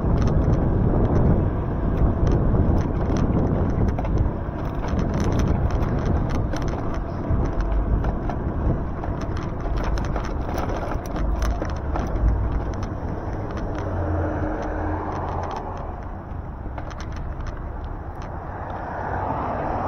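Road noise from riding an e-bike on wet streets: a steady rumble and hiss of tyres and wind, with frequent light clicks and rattles, thickest in the first half.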